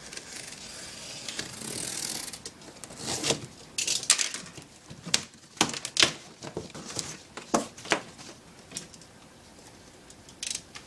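Box cutter slitting the packing tape along the top of a cardboard carton, a continuous scrape for about two seconds. Then the cardboard flaps are pulled open, with a string of sharp scrapes, crackles and knocks.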